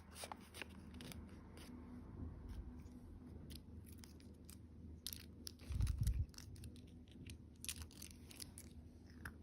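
Sharp little clicks, crackles and rustles of candy or toy packaging being handled and opened, with a low thump about six seconds in.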